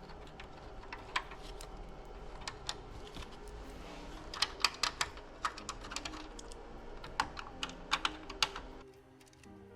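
Irregular light clicks and taps as screws are worked with a Torx T25 driver to fasten the bracket of a car's rear centre brake lamp. Background music comes in near the end.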